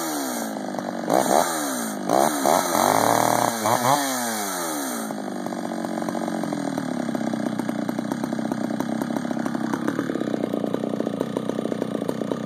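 Ported Homelite 8800/540 hybrid two-stroke chainsaw, its cylinder timing raised and transfers widened, revved in several quick throttle blips, then settling to a steady idle about five seconds in.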